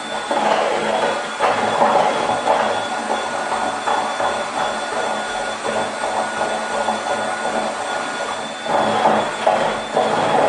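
Power drill running under load, boring into wood with a drill bit that has a threaded tip, with a steady motor whine and a rasping cut that rises and falls as the bit bites.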